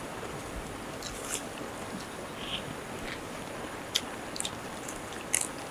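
Close eating sounds: chewing, with a few short crisp crunches of fried food, over a faint steady hiss.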